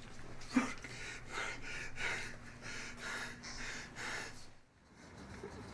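A man's heavy, ragged breathing and gasps, about two to three breaths a second, with a sharp knock about half a second in.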